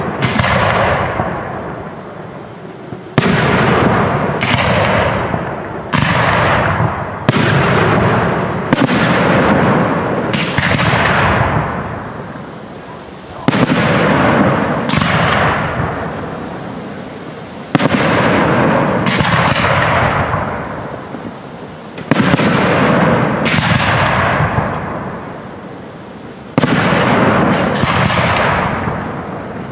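Aerial firework shells bursting: about fifteen sharp bangs, often in pairs a second or so apart, each followed by a long rolling echo that fades away.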